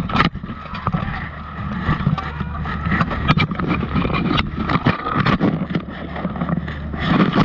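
Steel plate armour clattering and scraping in a close clinch between armoured buhurt fighters, with repeated sharp knocks and heavy rubbing right against a chest-mounted camera.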